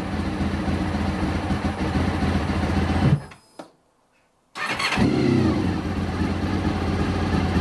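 Honda RC45's 750 cc V4 engine on a cold start with the choke on. It runs for about three seconds, the revs lift briefly and it dies; about a second later it fires again and keeps running. This is the cold-starting fault: it catches and then peters out, and more throttle makes it worse.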